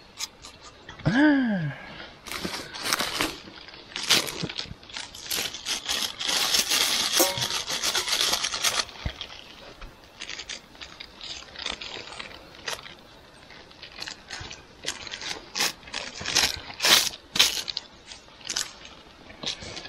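Irregular knocks, scraping and crunching of something being crushed fine by hand with an improvised tool, with a denser stretch of scraping in the middle. A short vocal exclamation about a second in.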